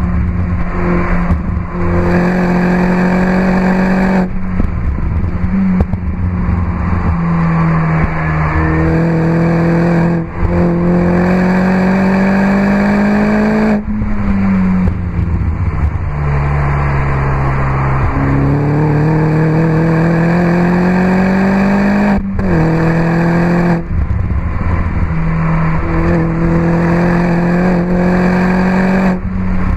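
Mini R59 John Cooper Works' 1.6-litre turbocharged four-cylinder running hard through an Akrapovic exhaust, heard onboard on a hot lap. The engine note climbs under full throttle and drops back at several short breaks for gear changes and lifts.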